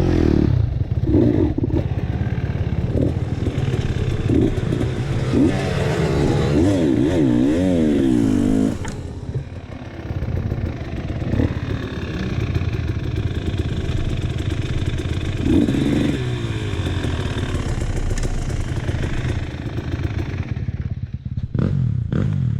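KTM 300 TPI two-stroke dirt-bike engine running under changing throttle, its pitch rising and falling repeatedly. It eases off about nine seconds in and picks up again around fifteen seconds.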